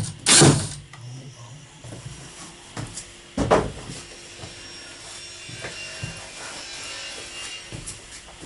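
A brief whir of a power drill just after the start, then a sharp knock about three and a half seconds in and faint clicks of tools and wood being handled.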